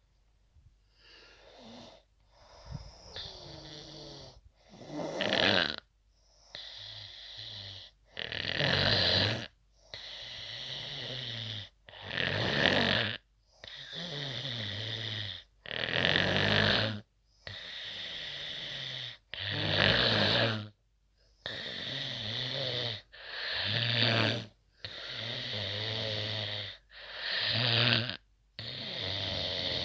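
A person snoring hard in a steady rhythm, a loud rising snore about every three and a half to four seconds, with a quieter breath in between and short silent gaps. The first few seconds are fainter.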